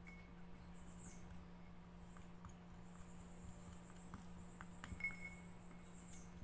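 A thin wooden stick stirring and scraping inside a small glass cup of liquid: faint clinks and scrapes, with a few sharper ticks about five seconds in. A faint high squeak runs through the background in the second half.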